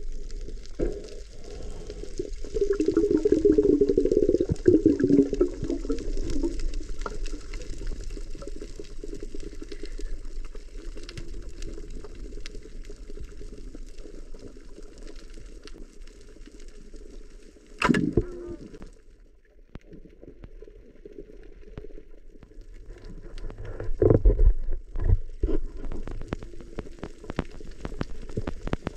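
Muffled underwater sound of the sea as heard by a submerged camera: continuous water rushing and bubbling with scattered faint clicks, a sharp knock just past the middle and a few thumps later on.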